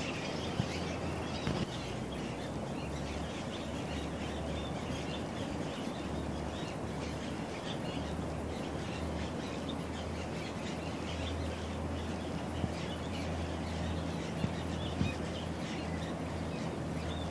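Small birds chirping continuously in many short calls, over steady outdoor background noise with a low hum.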